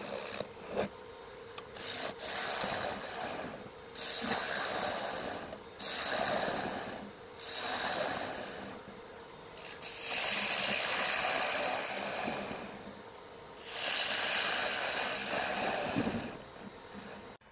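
A cutter scraping walnut in repeated passes on a homemade MDF rose engine, cutting a decorative pattern into the box lid. There are about seven strokes of one to three seconds each, with short pauses between them.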